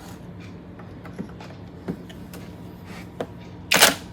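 Cordless impact driver on a rusty bench-grinder screw: a few faint clicks, then a short loud burst of the driver near the end as the screw is broken loose.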